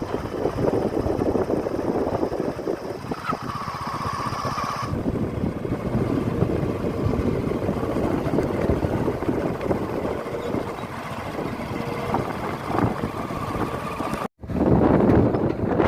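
Heavy diesel machinery engine running steadily. A high, steady whine joins it for a couple of seconds about three seconds in. Near the end the sound cuts out for an instant and comes back louder.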